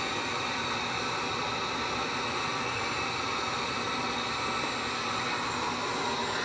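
Heat gun running steadily, a constant rushing hiss of blown air as it melts ice off the refrigerator's cooling fins.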